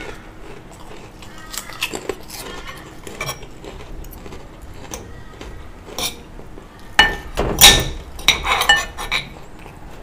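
Metal spoon and fork clinking and scraping against ceramic bowls while eating, with scattered light clicks and a burst of louder clinks about seven to nine seconds in.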